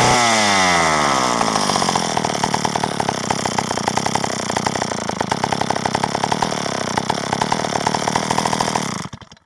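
Old Wizard Cat 16 two-stroke chainsaw running ridiculously loud. Its revs fall away over the first second or so and it settles into a pulsing idle. Near the end it is shut off and stops abruptly.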